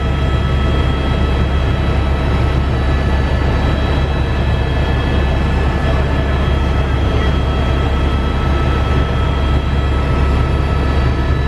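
Aircraft in flight, its engine running steadily with a deep rumble and a steady high whine, carrying the hunters out of the hunting area.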